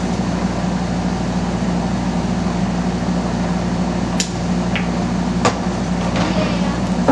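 A steady low machine hum throughout, with a few sharp clicks from about four to five and a half seconds in.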